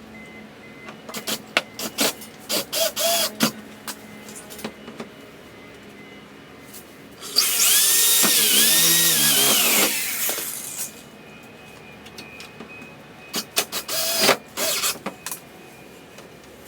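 A power drill run in a few short trigger pulls, then one longer run of about two and a half seconds with its pitch wavering as the speed changes. Scattered clicks and knocks of tool handling come between the runs.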